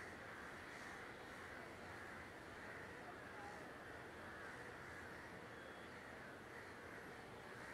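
Crows cawing faintly over a steady hum of distant city traffic.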